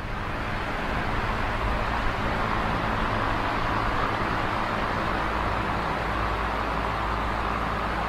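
Black electric desk fan running: a steady whir of the blades with a low motor hum underneath.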